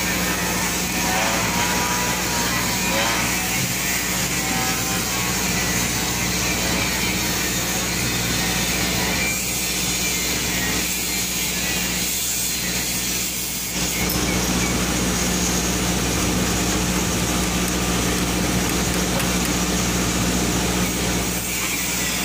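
Stick welding on steel: the arc crackles and hisses steadily over a constant low hum from the welding machine. The crackle thins out for a few seconds around the middle and then picks up again.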